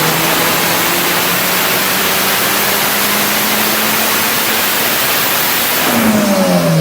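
Turbocharged car engine making a full-throttle pull on a chassis dyno. A loud, steady rushing roar covers everything, with the engine note climbing slowly underneath. About six seconds in, the revs fall away as the throttle is lifted.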